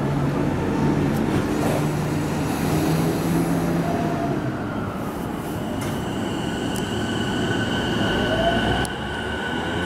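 JR East E233-series electric train starting to pull out of the platform. A steady low hum gives way to the whine of its inverter-driven traction motors, with steady high tones from about halfway and a tone rising in pitch near the end as it gathers speed.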